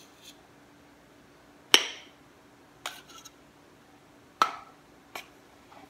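Plastic measuring spoon clinking against a ceramic bowl as cornstarch is spooned in: two sharp clinks a few seconds apart, with a few lighter taps around them.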